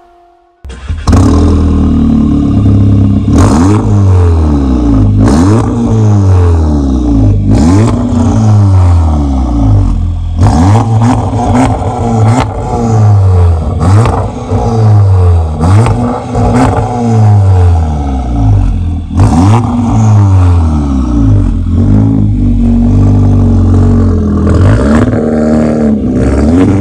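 Skoda Octavia 1.8 TSI's turbocharged four-cylinder engine revved over and over through an aftermarket split exhaust with dual tips, a stainless section and a Helmholtz resonator in place of the stock resonator. The pitch rises and falls about every one and a half to two seconds, starting about half a second in.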